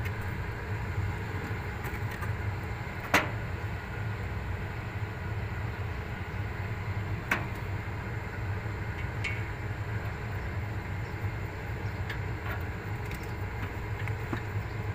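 Sheet-metal plate of a split AC outdoor unit being handled and fitted back on: two sharp metallic knocks, about three and seven seconds in, and a few lighter clicks, over a steady low background rumble.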